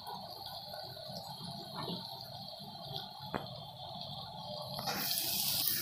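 Onion-tomato masala gravy sizzling gently in oil in a pan: a steady soft hiss with a few light clicks. It grows louder and brighter near the end.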